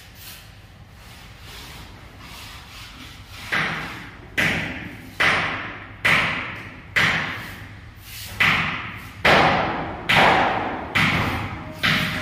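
Steel trowel working cement mortar on a concrete surface: a regular series of about ten strokes, each a sudden scrape that fades away, roughly one every 0.8 seconds, beginning a few seconds in.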